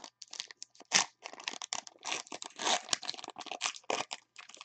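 Foil trading-card pack wrapper being torn open and crinkled by hand: a run of irregular crackles and rustles, with a louder crackle about a second in.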